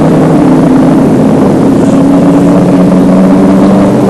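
Racing Ford Mustang's 5-litre V8 running hard at speed, a loud, fairly steady engine note.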